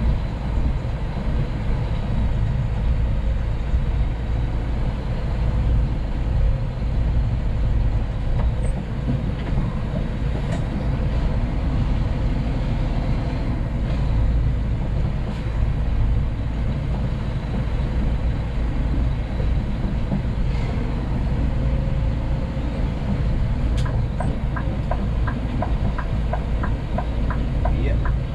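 Scania P380 dump truck on the road: a steady low drone of engine and road noise. A regular ticking of about three a second starts near the end.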